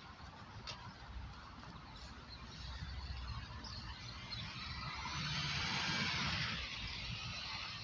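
Outdoor ambience: a low rumble of wind and handling on the microphone, with a rush of noise that swells and fades about five to seven seconds in.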